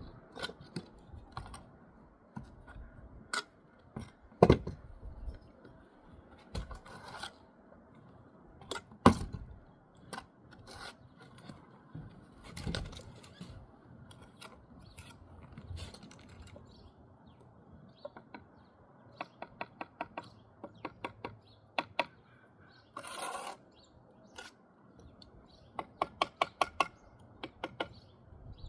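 Bricklaying by hand: scattered knocks and scrapes of a steel trowel on brick and mortar, with two louder knocks early on, a short scrape about two-thirds in, and twice a quick run of light taps as bricks are tapped down into the mortar.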